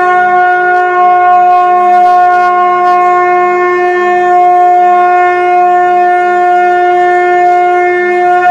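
Conch shell (shankh) blown in one long, steady note.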